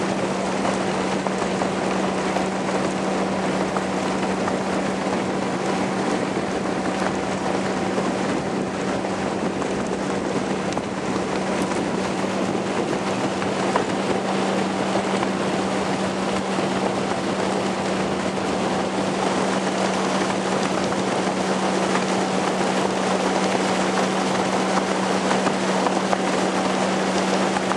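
Motorboat underway at a steady speed: the engine holds one constant hum under a steady rush of wind and water, with wind buffeting the microphone.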